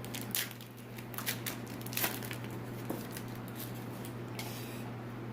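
Trading-card pack wrapper being handled and torn open: scattered short rustles and crackles, the longest about four and a half seconds in, over a steady low hum.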